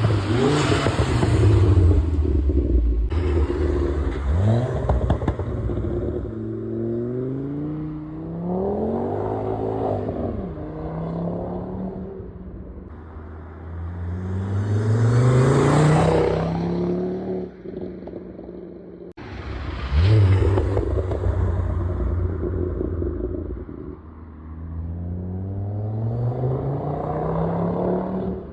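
Volvo C30 T5's turbocharged inline-five with a catless downpipe and 3-inch catback exhaust, revving and pulling up through the revs in several runs, its pitch climbing and dropping. The loudest moments are near the start, about halfway, and about two-thirds through.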